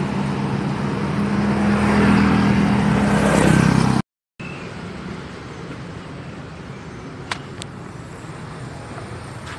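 A motor vehicle engine running close by: a steady low hum that grows louder for about four seconds, then cuts off suddenly. After a short silence comes quieter background noise, with two sharp clicks about a third of a second apart near the end.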